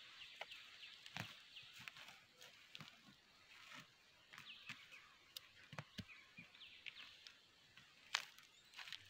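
Faint scrapes and knocks of a large knife blade digging into soil, with small birds chirping lightly in the background; the sharpest knock comes near the end.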